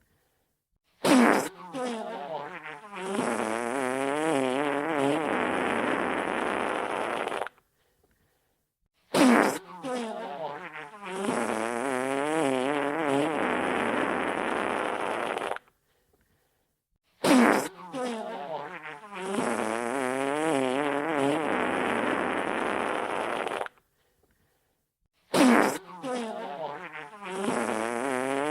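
Wet fart sound effect repeating on a loop, four times, about every eight seconds. Each pass opens with a sharp burst and sputters with a wobbling pitch for a couple of seconds. It then runs on as a steady, rougher blowing stretch for about four seconds before cutting off into silence.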